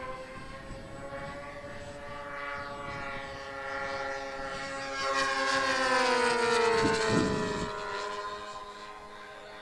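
Twin OS 46 AX glow engines of a Double Vision RC racer running at speed in a fly-by. The engine note swells to its loudest about six to seven seconds in and drops in pitch as the model passes, then fades.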